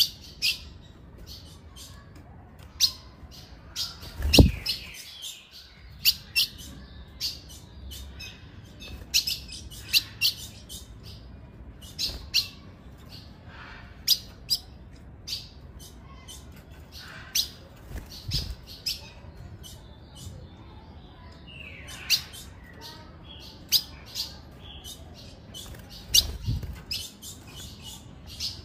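Female ultramarine grosbeak (azulão) giving short, sharp, high chip calls over and over at irregular spacing, about one a second. A few low thumps come through, the loudest about four seconds in.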